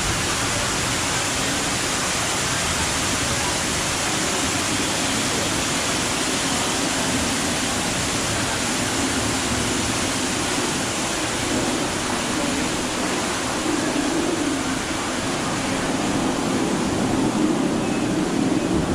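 Steady rushing of falling water, an even hiss-like wash that keeps going without a break, from the waterfall in the ride's rainforest scene.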